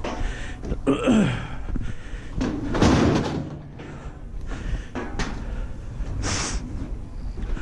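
Handling noises from moving scrap on a dolly: a creak about a second in and a loud bang about three seconds in, then a short hiss a little after six seconds.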